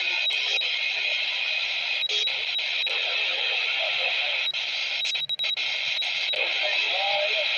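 CB radio receiving through its speaker: steady static hiss with a thin high whistle and faint warbling traces in the noise, briefly cutting out a few times about five seconds in.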